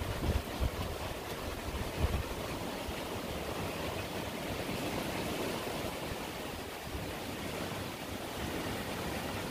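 Swollen, muddy river rushing under a bridge: a steady noise of fast-flowing water. A few short low thumps in the first two seconds.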